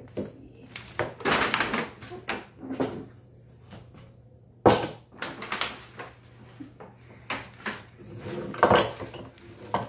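Irregular tabletop clatter of things being handled and set down, including a cup with a spoon in it, with knocks and rustling. There is a sharp knock about halfway through and another near the end.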